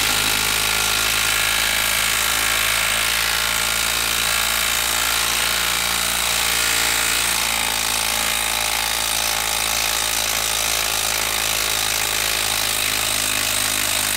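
Makita 12-volt brushed impact driver hammering steadily under load as it backs a lag screw out of a wood block.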